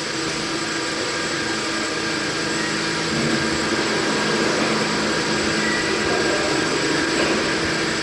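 Two-cylinder Hesketh steam winding engine running, a steady noisy mechanical sound with faint steady tones through it, growing a little louder about three seconds in.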